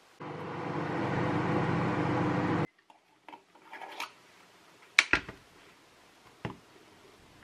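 A kitchen appliance running with a steady electric hum and fan noise, which cuts off abruptly after about two and a half seconds. Then come a few light clinks and a sharp knock as a glass jar is handled and set down on a plastic cutting board.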